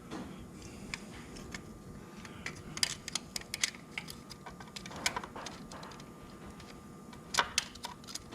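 Light clicks and clinks of small metal parts and hand tools being handled, coming in small irregular clusters, with the sharpest taps about three seconds in and again about seven seconds in.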